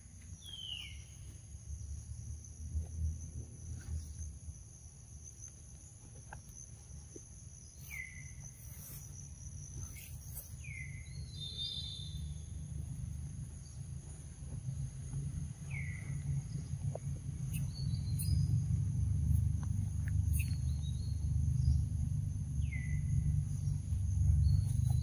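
Forest ambience: a steady high insect drone with a bird's short falling whistle about five times, several seconds apart. Under it runs a low rumble that grows louder toward the end.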